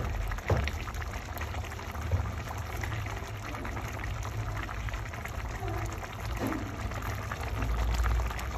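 A pot of spaghetti boiling in water, a steady bubbling, with two short knocks, about half a second in and about two seconds in.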